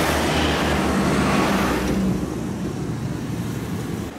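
Street traffic: a car passes close by, its engine hum and tyre noise loud for about two seconds before dropping away to quieter traffic.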